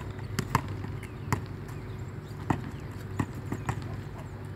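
A volleyball being struck by hand and bouncing on a concrete court. Several sharp slaps and thuds come at irregular intervals over a steady low hum.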